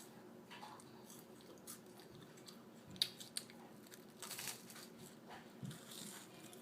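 Faint chewing of toast, with a few small crunches about three seconds and four and a half seconds in.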